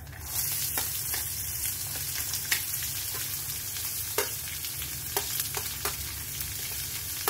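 Chopped shallots and green chilli sizzling steadily in hot oil as they are spooned into the pan, the hiss starting just after the start. A few sharp metal clicks of the spoon come through the sizzle.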